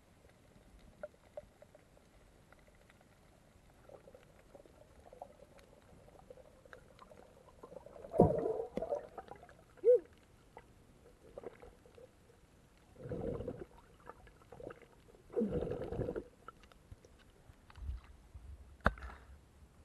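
Muffled underwater sound from a diver's camera: a few short gurgling bursts several seconds apart and faint clicks, with sharper splashy knocks near the end as the camera comes up out of the water.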